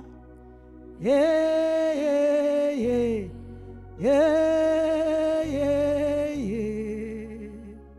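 Slow worship music: long held notes, each sliding up into pitch, over sustained low chords. The held notes come in about a second in and again about four seconds in, then a lower note takes over and fades near the end.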